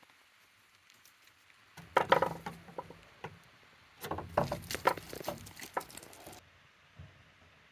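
Young goats playing: two flurries of quick, irregular knocks and scuffles, one about two seconds in and a longer one from about four to six seconds in.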